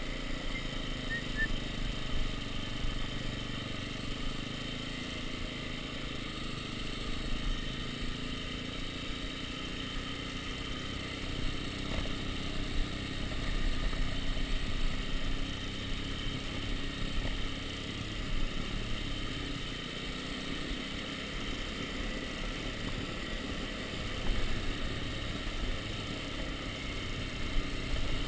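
Dirt bike engine running at low, steady revs while the bike rides down a cobblestone road, with scattered short knocks and rattles from the bumps.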